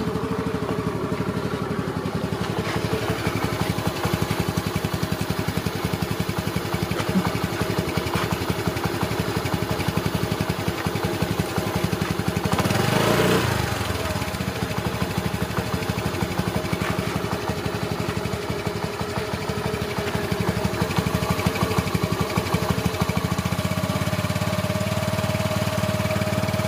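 Battery-powered toy quad bike switched on, giving a steady engine-like buzz with a brief rise and fall in pitch about halfway through.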